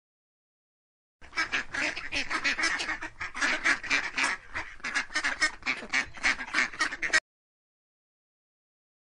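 Ducks quacking in a rapid run of quacks, several a second, starting about a second in and stopping near the end.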